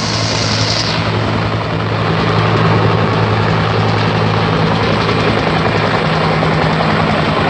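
Helicopter flying low with a steady, rapid rotor chop over its engine noise, growing a little louder a couple of seconds in.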